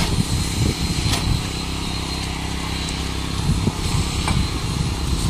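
Small petrol engine of a rail weld grinder running steadily, with a few sharp metallic knocks.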